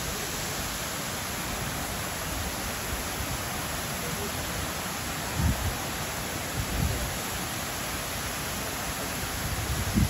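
Steady, even rush of a wide waterfall, many strands of water pouring over a cliff into a pool. A few brief low thumps of wind on the microphone come about halfway through.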